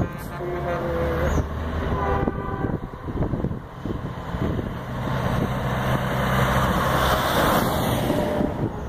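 Semi truck's diesel engine running as it drives up and passes close by, loudest about seven seconds in. A multi-tone air horn sounds for about a second and a half, starting about a second in.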